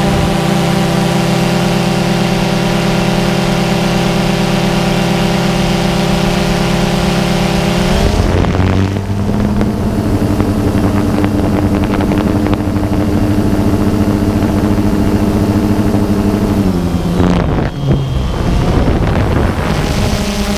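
DJI Phantom 2 quadcopter's motors and propellers buzzing in flight, a steady hum of several tones that drops in pitch about eight seconds in, holds, then shifts again near the end as the throttle changes.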